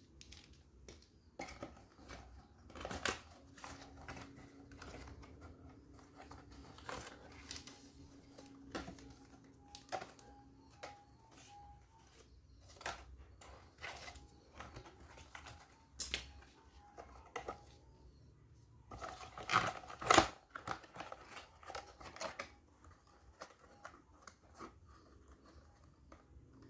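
Handling noises: irregular clicks, snips and rustling, with a louder cluster of scraping clicks about two-thirds of the way through. No horn sounds.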